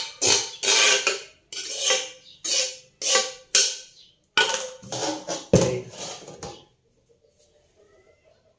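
Metal spoon scraping fried rice out of a metal wok into a pot: about a dozen quick scrapes and knocks of spoon on wok, stopping about seven seconds in.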